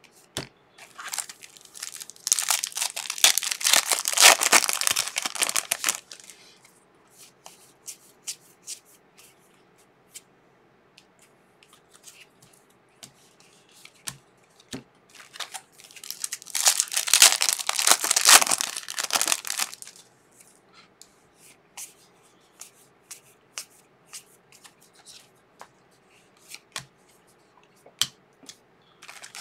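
Crinkly foil trading-card pack wrappers being handled and torn, in two loud stretches of a few seconds each, one starting about a second in and the other about sixteen seconds in. Between them, quiet taps and slides of cards being sorted.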